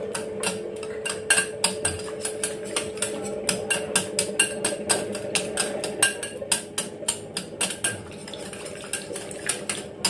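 Wire whisk clicking and scraping rapidly against a glass bowl while beating butter and oil together, the first step of a cake batter. The clicks come several times a second, irregularly, and ease off near the end.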